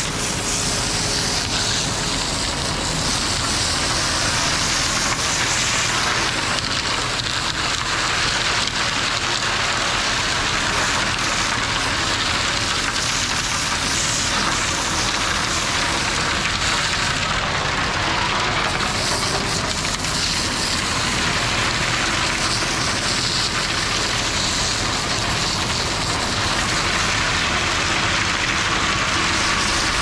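Water from a hose spray nozzle washing concrete buildup off a concrete mixer truck's metal chute: a steady hiss of spray striking and running down the chute, like a heavy rainstorm.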